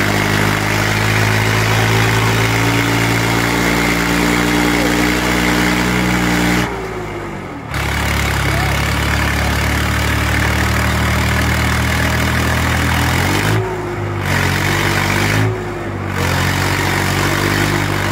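Swaraj 855 tractor's three-cylinder diesel engine running hard under load while the tractor holds a wheelie on its rear wheels. The engine note drops sharply about seven seconds in, runs lower for several seconds, then climbs again, with two brief dips near the end.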